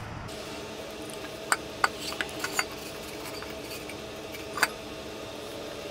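Stainless steel mixing bowl being handled and tipped while dough is worked and scraped around inside it, giving a cluster of five sharp clinks and knocks about a second and a half in and one more near the end, over a faint steady hum.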